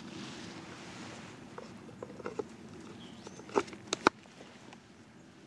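A carbon-steel bushcraft knife handled and slid into its leather sheath: a few light clicks, then sharper clicks about three and a half to four seconds in as the blade goes into the sheath.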